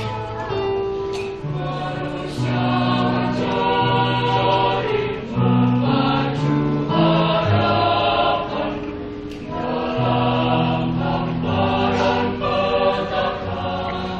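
Mixed high-school choir singing in several parts, holding sustained chords with low male voices beneath the upper voices and the notes changing every second or two.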